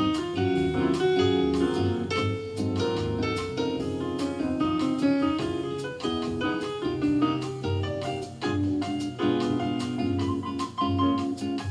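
Piano-led music with drums, played back through a home-built coaxial speaker, a stiff-suspension woofer with a tweeter fitted in its centre, and picked up by a camera microphone that leans bright.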